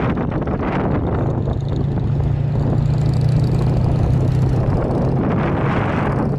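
Motorcycle engine running at cruising speed under the rider's camera, a steady low engine note that grows stronger about a second in and eases slightly near the end, mixed with wind rushing over the microphone.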